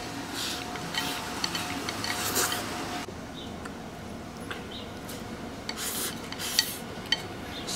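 Chopsticks clicking and scraping against a porcelain rice bowl as rice and pickled radish greens are shoveled into the mouth, with eating noises. Irregular light clicks and short scrapes, the loudest two sharp clicks near the end.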